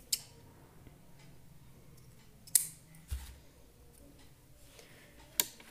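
Scissors snipping through crochet yarn: a few short, sharp snips, the loudest about two and a half seconds in and again near the end.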